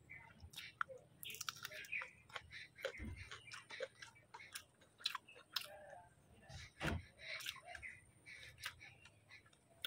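Faint close-up chewing and mouth sounds of a person eating, with scattered small clicks and smacks.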